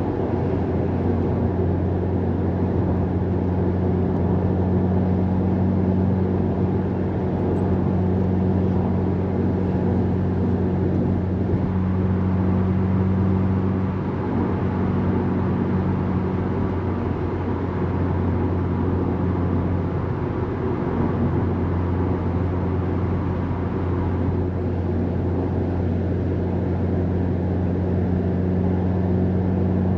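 Subaru WRX STI's turbocharged flat-four engine humming steadily with tyre and road noise, heard from inside the cabin at a steady cruise. The engine note eases a little about halfway through, then steadies again.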